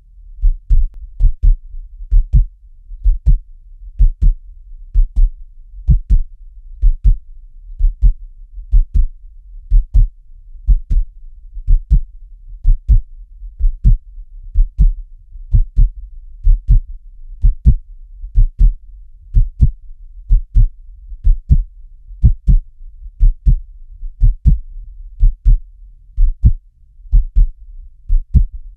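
Steady heartbeat: a low double thump, lub-dub, about once a second and perfectly regular, over a faint low hum.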